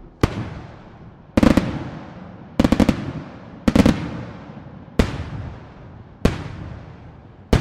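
Aerial firework shells bursting in quick succession: about seven loud bangs, roughly one a second. Three of them come as tight clusters of several quick reports, and each bang trails off in a rolling echo.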